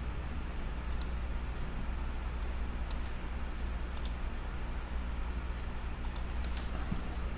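A handful of single computer mouse clicks, spaced irregularly, over a steady low hum.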